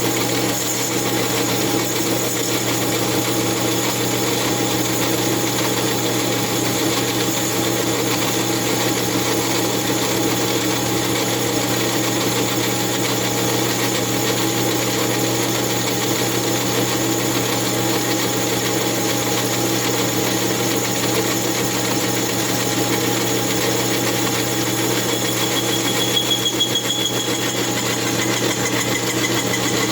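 Lathe running steadily while cutting down the base of an Echo CS8000 chainsaw cylinder on a mandrel, taking about ten thousandths per pass. A brief high whine comes in about 26 seconds in.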